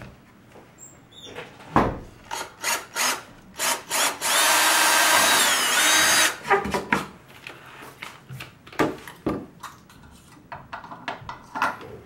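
Cordless drill running for about two seconds into the wooden base board of a PVC camera rig, its motor pitch shifting under load, with knocks and clatter of the drill and parts being handled before and after.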